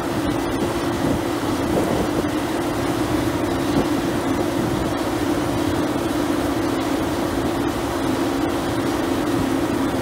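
CLAAS Lexion 530 combine harvester running under load while harvesting barley: engine and threshing machinery giving a steady, even drone with a constant hum.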